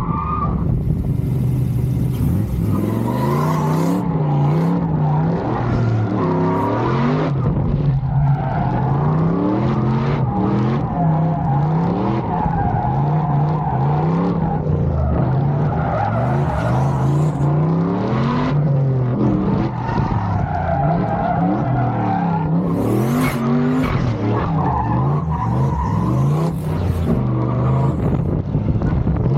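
Turbocharged LS V8 engine of a drift truck revving up and down over and over as it drifts, with the tires squealing in several long stretches.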